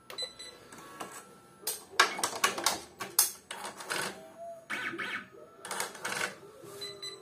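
Happy embroidery machine running a thread-trim test: a quick run of sharp mechanical clicks and clatter from the trimmer and thread catcher, with short motor whines between. The owner judges the cycle not right: the catcher's Velcro sits too low and catches the needle.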